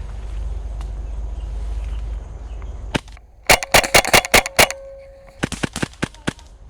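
Airsoft guns firing: a single shot about three seconds in, then a fast run of about eight shots in just over a second, then a few more shots near the end.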